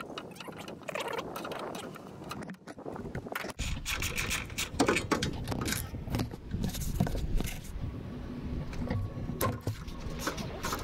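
Hand-tool work under a car's rear bumper: a socket wrench on an extension bar against a bolt, giving irregular metallic clicks, knocks and scrapes, with a low rumble from about three and a half seconds in.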